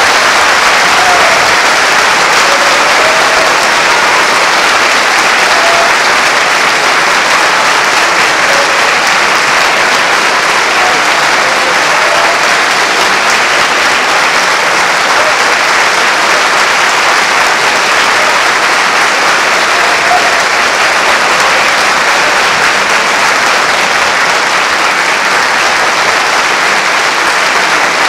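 Concert-hall audience applauding, a steady, sustained ovation at the end of a piano concerto.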